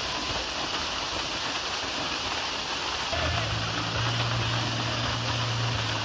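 Narrow waterfall pouring onto rocks in a pool: a steady rush of falling, splashing water. About three seconds in, a low steady hum joins it.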